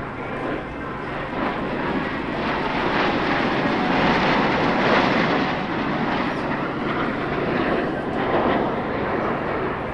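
Jet noise from Blue Angels F/A-18 Hornets flying past. It builds over the first few seconds, is loudest around the middle, and stays loud.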